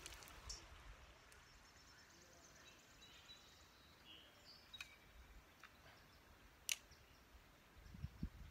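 Near silence: faint outdoor ambience with a few faint, short bird chirps and a single sharp click about two-thirds of the way through.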